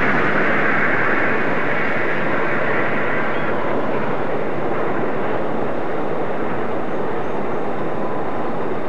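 Steady outdoor rushing noise, loudest at the start and easing off over the first few seconds, with a couple of faint bird chirps.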